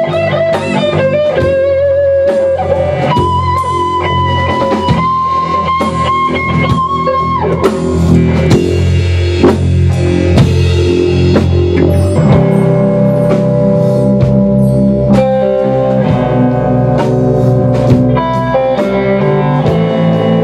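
A band plays live, with electric guitars and a drum kit and no vocals. For the first seven seconds or so a lead guitar holds long notes with vibrato; after that the band plays fuller chords, with the drums more prominent.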